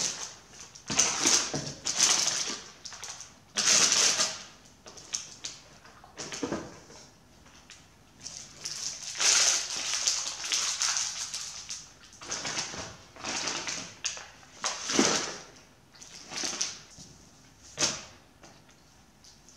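Snack packaging and a cardboard box rustling and crinkling in irregular bursts as they are handled and tidied away.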